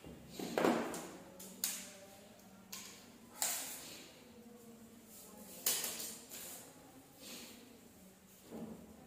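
Coloured craft sticks being handled and laid into a woven chain on a tiled floor: irregular clicks and short scrapes, about eight in all, spaced a second or so apart.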